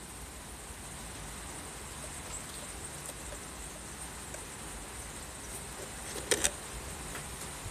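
Steady hiss of heavy rain falling, with two sharp clicks close together about six seconds in.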